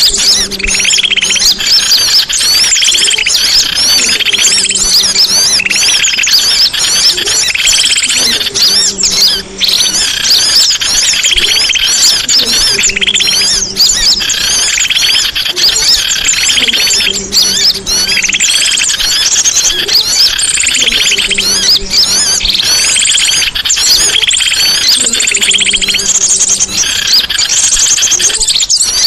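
Songbirds chirping and twittering rapidly and continuously, with a low two-step tone repeating every two seconds or so underneath.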